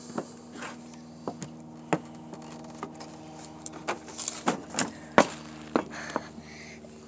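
Irregular sharp clicks and knocks of small sheet-metal bucket parts being handled and set down on a workbench, busiest in the second half, over a steady low hum.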